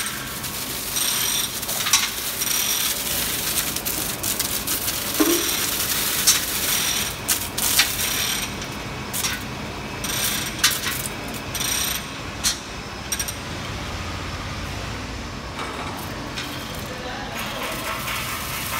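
Overhead electric drum mixer running, its long steel shaft spinning an impeller in liquid. A steady mechanical running sound carries many irregular sharp clicks and rattles, which thin out about two-thirds of the way through.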